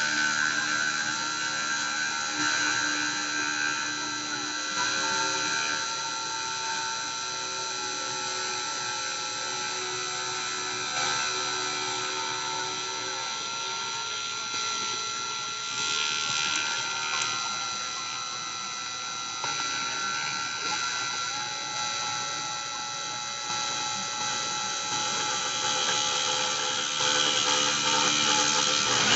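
Dremel rotary tool running as the spindle of a Cyclone PCB CNC mill, milling a pattern into acrylic plexiglass. A steady high whine over a grinding hiss, with the tones shifting pitch a few times as the cut moves.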